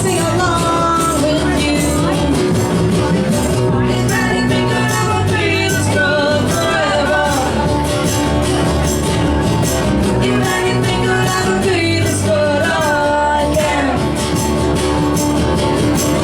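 A rock band playing, with drums keeping a steady beat under a sung melody.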